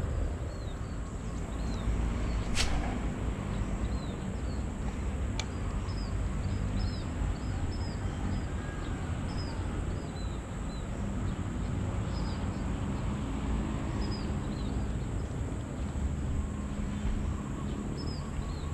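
Small birds chirping over and over in short, hooked high notes, over a low steady rumble and a faint steady high tone. A sharp click comes about two and a half seconds in, and another about five seconds in.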